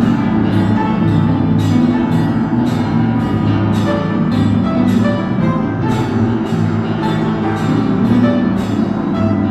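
Experimental electronic music: a steady beat of short ticks about twice a second over sustained low bass notes, with a scattered melody of pitched notes above.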